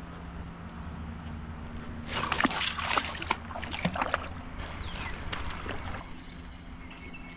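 A dog running through shallow creek water: a couple of seconds of irregular splashing that starts about two seconds in, followed by a few lighter splashes.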